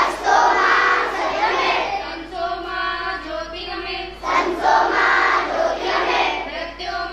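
A large group of schoolchildren singing a prayer together in unison, with held notes between louder stretches.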